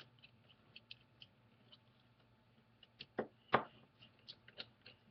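Faint clicks and ticks of a small precision screwdriver working screws out of a Nexus 7 tablet's aluminum mid-frame, with two louder knocks a little over three seconds in.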